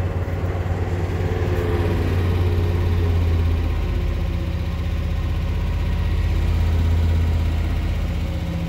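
Freshly rebuilt Chevrolet 350 small-block V8 running at a steady fast idle of about 2,000 rpm while it is broken in, heard from inside the cab.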